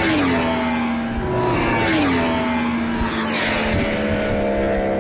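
Yamaha R1 superbike's inline-four engine at racing speed sweeping past three times, its note dropping in pitch each time it goes by.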